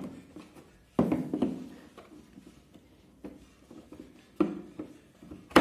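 Steel bolt sockets handled in a moulded plastic tool case: a knock about a second in, another about four and a half seconds in, and a sharp click near the end, with light handling noise between.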